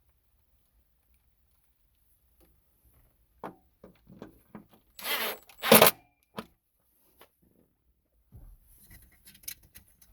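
Small screws being driven into the plastic overhead console of a Ford F-150 and the plastic parts handled: scattered clicks and short scrapes, with two louder rasping scrapes just past the middle.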